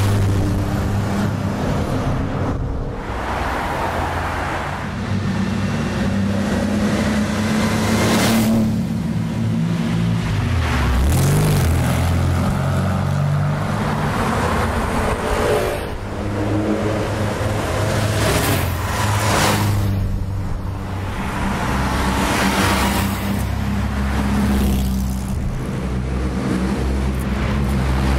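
Classic sports cars driving past one after another, with their engines revving and running. Each one swells up loudly as it passes close, several times over, with its engine pitch rising and falling as it accelerates by.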